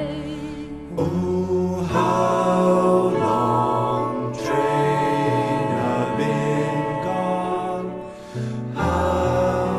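Music: a song with voices singing long held notes over an accompaniment, with a brief dip a little after eight seconds in.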